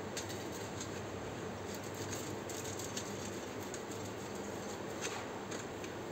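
Boiled potato rubbed down a stainless-steel box grater over a steel plate: soft, irregular scraping with scattered light clicks, over a steady background hum.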